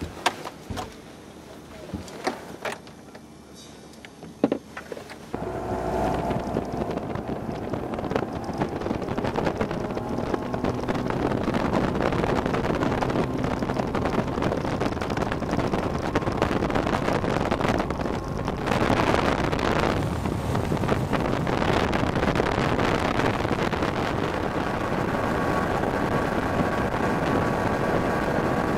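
Mercury 200 outboard motor on a bass boat running at high speed, a steady engine whine over wind and rushing water. It comes in suddenly and loud about five seconds in, after a few soft knocks.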